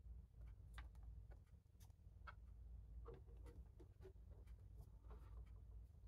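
Faint scattered clicks and light scraping of fingers and a plastic pry tool handling parts inside an opened laptop, over a low steady room hum.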